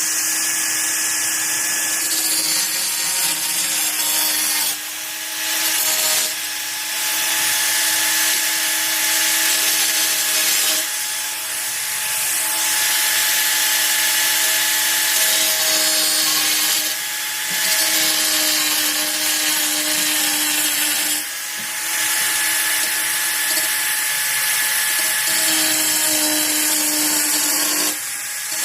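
Titanium AG710 710 W angle grinder running at full speed under load: a steady whine under a harsh hiss. The hiss drops away briefly about six times, as the disc comes off the work, while the motor keeps spinning.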